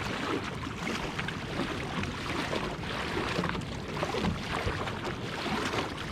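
Water splashing and sloshing around a kayak on ocean swell, with wind rumbling on the microphone.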